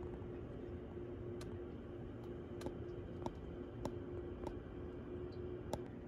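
Faint, sharp clicks, about one every half second to a second, over a low steady hum and room tone.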